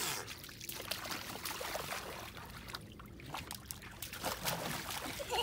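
Small bare feet sloshing and splashing in shallow water in an inflatable paddling pool, as irregular small splashes and patters.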